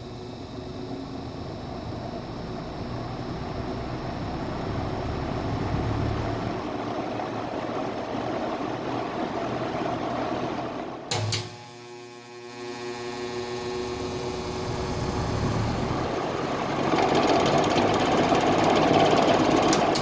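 1960s 20-inch Eskimo box fan running: motor hum and the rush of air from the blades, building gradually. About eleven seconds in there is a click and a brief drop, then the sound builds again and is louder over the last few seconds.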